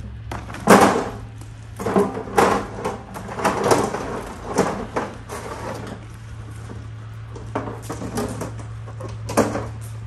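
Household handling clatter: a series of separate knocks, thuds and clinks, about seven, the loudest a little under a second in, over a steady low hum.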